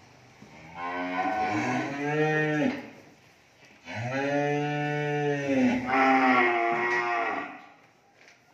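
Cattle mooing: two long calls, the second lasting about three and a half seconds and shifting in pitch partway through.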